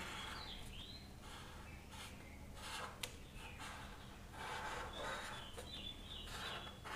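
Faint scratching of a felt-tip marker drawn across paper in several separate strokes, with a thin squeak from the tip now and then.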